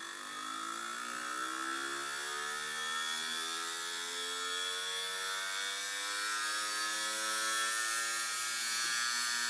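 Uncovered hard disk drive's spindle motor spinning the platters up after the drive had been locked up: a whirring whine that climbs in pitch and grows steadily louder as it comes up to speed.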